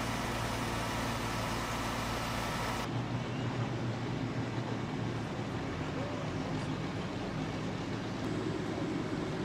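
An engine running steadily at an unchanging low hum, over a haze of outdoor noise. The sound changes abruptly about three seconds in, then goes on with the same hum.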